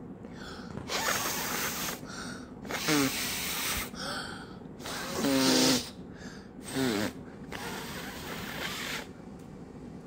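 A girl huffing warm breath onto a heat-sensitive silicone Pop It Pets toy to make it change colour: about six breathy exhales, three of them with a short voiced 'haa'.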